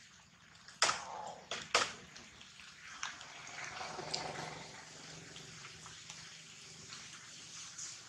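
Two short, sharp sounds about a second apart, followed by a steady wash of water-like noise such as dripping or trickling water.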